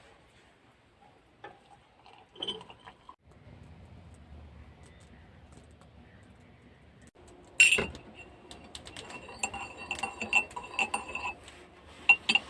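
A spoon clinking against a cup: one sharp ringing clink about two-thirds of the way in, then a run of lighter clinks, as when stirring tea.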